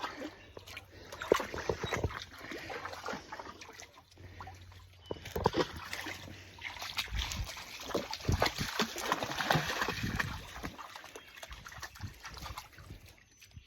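Shallow creek water splashing and sloshing in irregular bursts as something moves through it.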